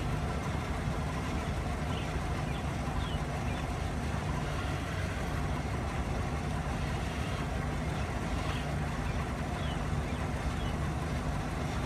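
An engine running steadily at idle, a low even drone, with a few faint bird chirps over it.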